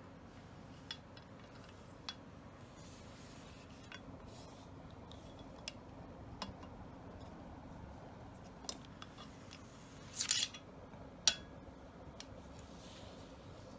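Metal parts of a Beretta A400 semi-automatic shotgun being handled: scattered light clicks and clinks, a short scraping rub about ten seconds in, then a sharp metallic click.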